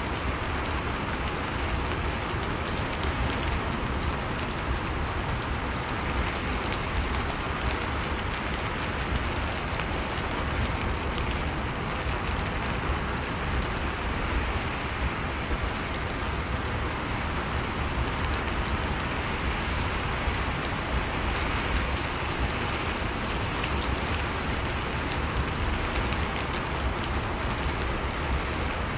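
Steady rain falling, an even patter of drops on a surface.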